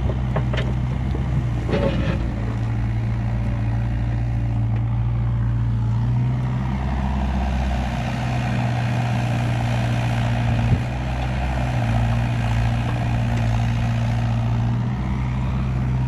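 Kubota KX121-3 mini excavator's diesel engine running under hydraulic load while it lifts a log and swings it onto a pile, its note stepping up and down with the work. A few knocks near the start as the bucket and thumb grab the log.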